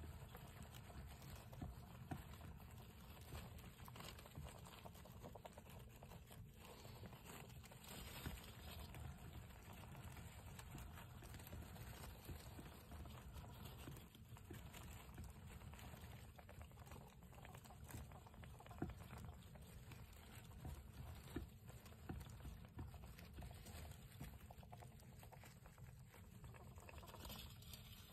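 Faint small ticks and patters of mice scurrying about, over a steady low rumble.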